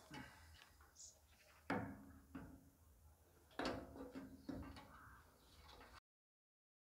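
Light knocks and clatter of an action camera and LED light on their cords being lowered through the filler opening of a steel fuel tank, with two sharper clunks about two seconds apart. The sound cuts out completely near the end.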